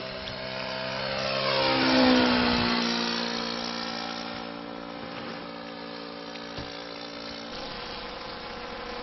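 Radio-controlled Seagull Cessna 152 scale model plane passing close overhead: its engine note grows louder to a peak about two seconds in and drops in pitch as it goes by, then runs steadily as the plane moves away.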